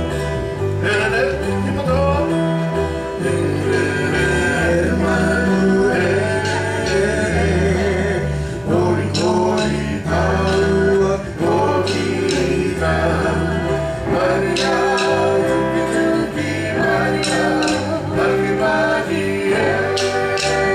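Music for a Māori dance: voices singing a song to guitar, over a steady stepping bass line.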